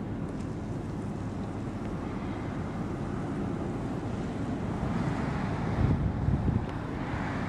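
Wind blowing across the microphone, a steady low rumble that gusts harder near the end.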